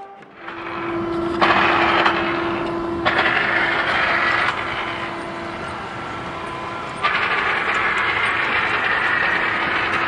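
Steady construction-site machinery noise: a constant hum under a broad rushing din that jumps up and down in level a few times.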